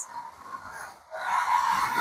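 A 1/24 scale TTS Abarth A112 front-wheel-drive slot car running on the track, its small electric motor giving a steady whine. It is faint at first and comes in louder about a second in.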